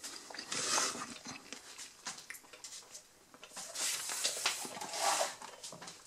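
Rustling and scraping of a paper drink cup and a cardboard takeaway box being picked up and slid across a wooden table, with small knocks. There is one short burst under a second in and a longer stretch of handling from about three and a half to five seconds.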